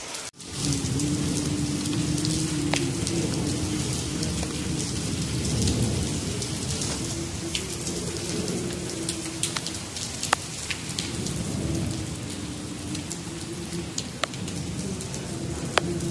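Steady rain falling, with scattered sharper drop ticks over the hiss and a low rumble underneath, starting after a brief break right at the start.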